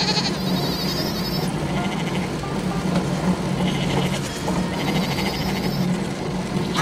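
Sheep bleating several times over a steady low machine hum.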